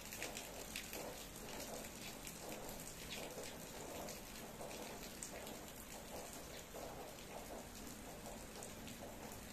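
Steady rain falling, many single drops heard as fine scattered ticks over an even hiss.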